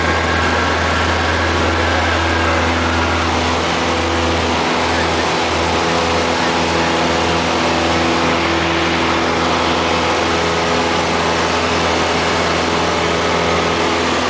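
Single-engine Cessna's piston engine and propeller running at steady high power through the takeoff roll and initial climb, heard as a loud, even drone from inside the cabin.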